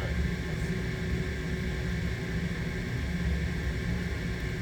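Steady low rumble and hum of running machinery, with a faint constant tone above it and no change.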